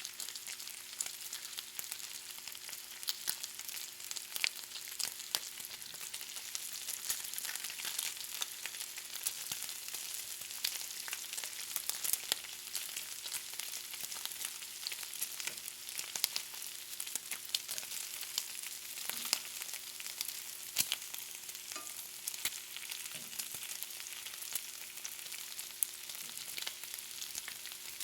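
Bacon frying: a steady high sizzle with frequent small sharp pops and crackles of spitting fat.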